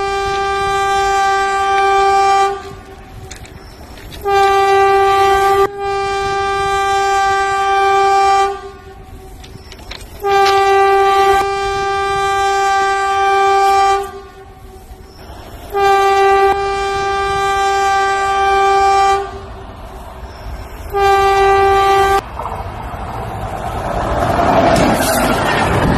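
A train horn sounding in a series of about six long, steady blasts, each lasting one to four seconds with short pauses between. In the last few seconds it gives way to the rising noise of the train arriving close by on the track.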